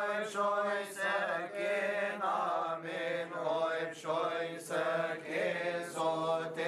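Coptic liturgical chant from a Christmas liturgy: a male voice sings long, winding melismatic phrases over a steady low held note.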